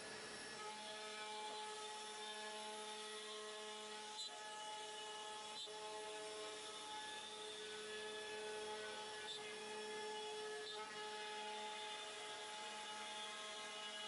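CNC router spindle running steadily as it cuts wood with a compression bit, a steady whine of several held tones.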